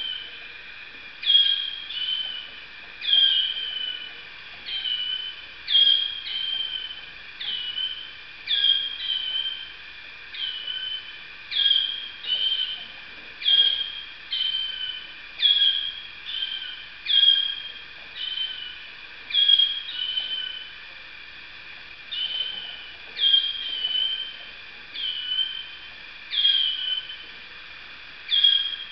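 Waterslager canary song: short falling phrases, about one every second and a half to two seconds, repeated without a break.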